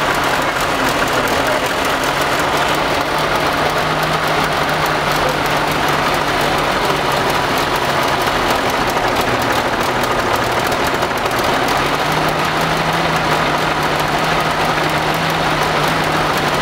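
Oliver HG crawler tractor's four-cylinder engine idling steadily, its speed lifting slightly about four seconds in and again around twelve seconds.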